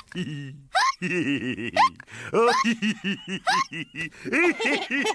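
Hiccups: sharp, rising "hic" sounds about a second apart, overlapped from about a second in by quick, rhythmic ha-ha laughter that keeps going.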